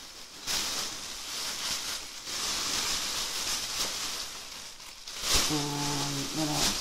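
Plastic wrapping crinkling and rustling as a toy is unwrapped by hand, in uneven bursts. Near the end a short steady hummed note from a voice.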